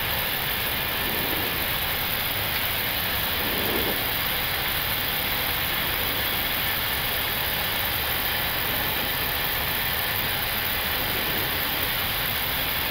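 Steady flight-deck noise of an Airbus A321neo descending on approach: an even rush of air with engine noise beneath, holding level throughout.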